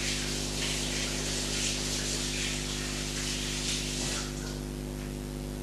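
Kitchen tap running as hands are washed under it, a fluctuating hiss of water that stops about four seconds in.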